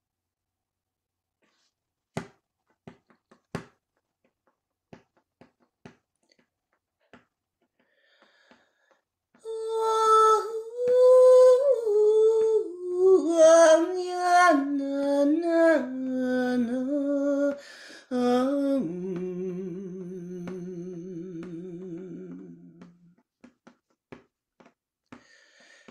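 A woman's solo voice begins a slow chant about nine seconds in, a melody stepping down in pitch, then holds one low wavering note that fades out a few seconds before the end. Before the chant there are only a few faint clicks.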